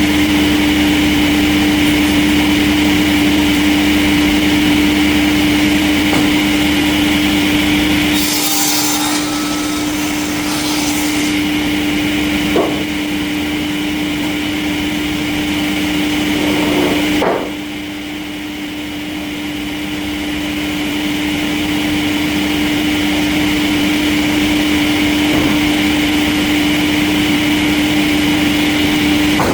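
Industrial sawmill machinery running with a steady machine hum and a sawing noise. A burst of hiss comes about eight to eleven seconds in, then a single sharp knock. The sound drops a little just past seventeen seconds and slowly builds back up.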